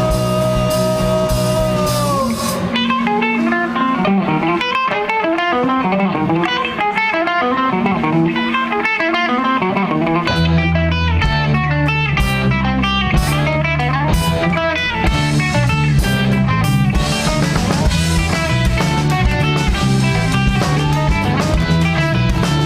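Live rock band playing an instrumental passage: an electric guitar holds notes that bend down about two seconds in, then plays quick runs of notes over drums. A heavy bass line comes in strongly about ten seconds in.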